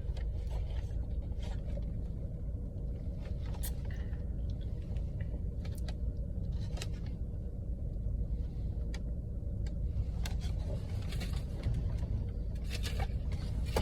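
Steady low rumble of a car engine idling, with a few faint clicks scattered through it.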